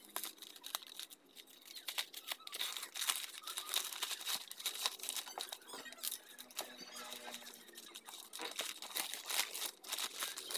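White plastic wrapping slit with a knife, then torn and peeled open by hand: a run of irregular crinkling and crackling.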